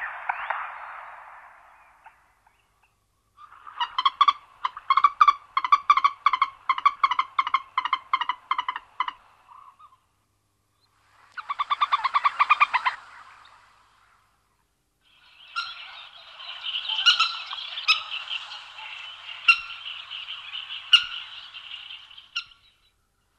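Common moorhen calling in three separate bouts: first a run of quick, evenly repeated notes lasting several seconds, then a short rapid burst, then a longer stretch of calls with sharp clicks mixed in.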